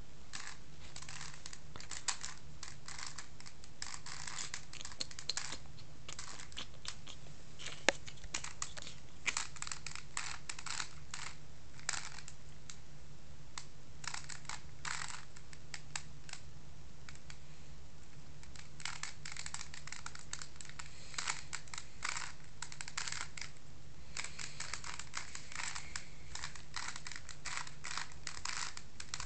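Rubik's cube being turned: quick irregular runs of plastic clicks and clacks from its layers, with brief lulls, over a steady low hum.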